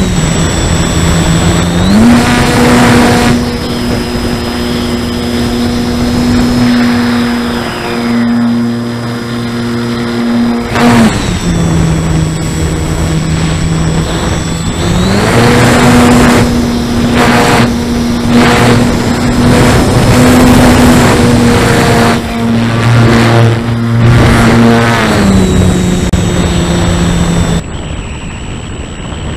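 Parkzone S.E.5a model biplane's electric motor and propeller, heard from on board over wind rush. The motor runs at a steady pitch that steps up and down several times with throttle changes. Near the end it is throttled back and the sound drops.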